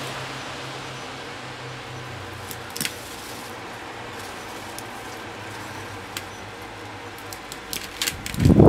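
Celery being picked by hand from a potted plant: a few sharp crackles and snaps of stalks and leaves over a steady low hum. Near the end a loud low rushing noise starts.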